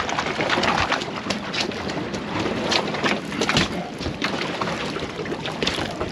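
Wind and water noise around a drifting fishing boat, with scattered sharp knocks and clicks from tackle and deck.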